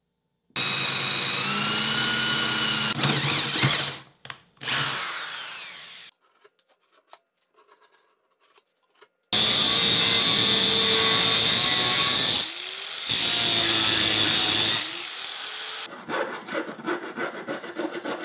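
Angle grinder with a cutoff disc running and cutting sheet steel, in long bursts of a few seconds with the motor winding down between them. Near the end come short, irregular scraping strokes on the metal.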